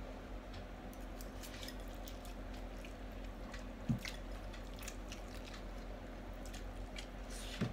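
Faint close-up eating sounds of two people on spicy instant noodles: soft chewing and slurping with scattered small clicks, and a single short knock about four seconds in, over a steady low hum.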